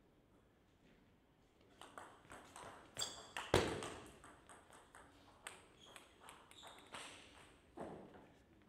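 Table tennis rally: the ball clicking off the rackets and the table in quick succession, starting about two seconds in, with one much louder knock about three and a half seconds in.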